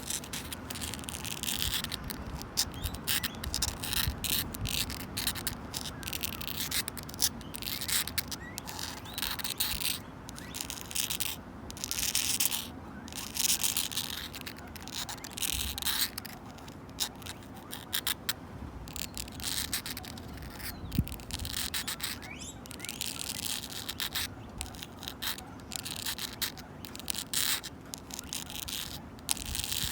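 Long natural fingernails scratching and clawing at a wooden bench in quick, irregular strokes, over a steady low background noise.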